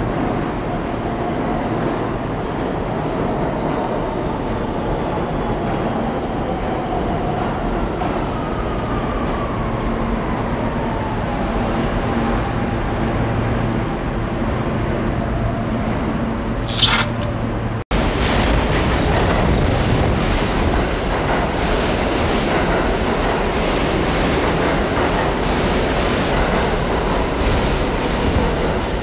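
NYC subway train running slowly along a station platform, its motor whine falling in pitch as it slows, with a brief sharp hiss a little past halfway. Then, after an abrupt cut, another subway train rushes past at speed with a loud rumble and the clatter of wheels on rail.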